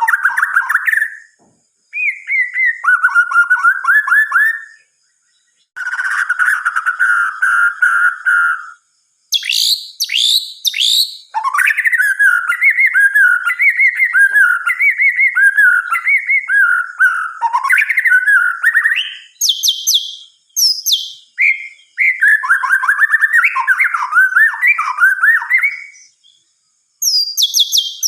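White-rumped shama singing a loud, varied song of whistled phrases, rapid trills and very high sharp notes, broken by short pauses between phrases.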